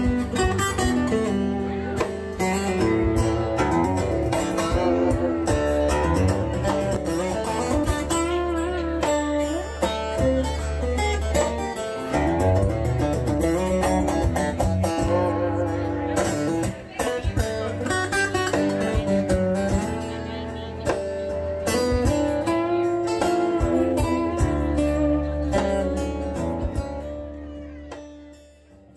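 Background music led by a plucked acoustic guitar with a steady beat, fading out near the end.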